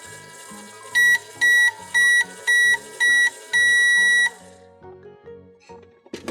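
Microwave timer beeping: five short beeps, then one longer final beep, the signal that the cycle is done. Light background music plays underneath, and there is a sharp click near the end.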